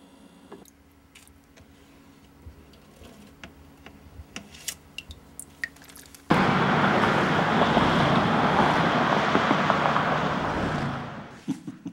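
A road vehicle passing close by: a loud, even rush of road noise that starts suddenly about six seconds in and fades away near the end. Before it, near-quiet with a few faint scattered ticks.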